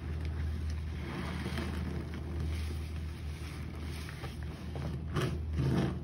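A sponge squeezed and kneaded by rubber-gloved hands in a basin of foamy detergent-and-bleach water: wet squelching and sloshing, with a run of louder squelches near the end, over a steady low hum.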